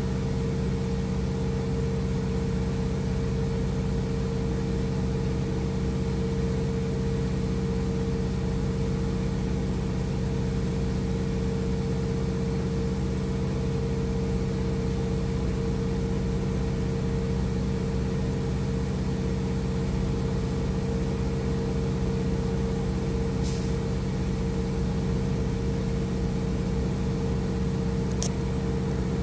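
Semi truck's diesel engine idling steadily, a constant low hum with no change in speed, with a couple of light clicks near the end.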